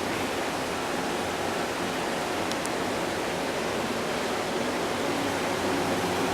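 Steady rushing noise, even from low to high pitch and unchanging throughout, with no distinct events: the constant background hum of the space.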